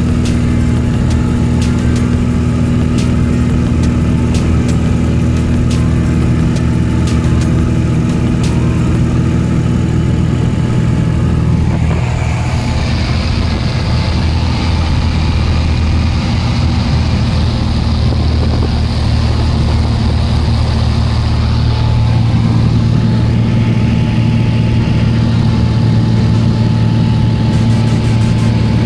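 Light aircraft's propeller engine running steadily with a constant low drone. About twelve seconds in, a brighter rushing hiss joins and the engine note shifts slightly.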